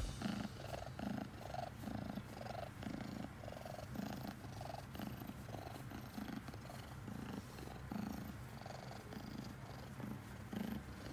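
Domestic cat purring steadily while being stroked on the head and chin, the purr pulsing about twice a second with its breathing.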